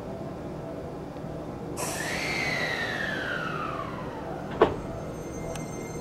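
Seibu 20000 series train's sliding doors closing: a whine that falls steadily in pitch for a couple of seconds, then one sharp thud as the doors shut a little past halfway, followed by a small click and a faint steady high whine.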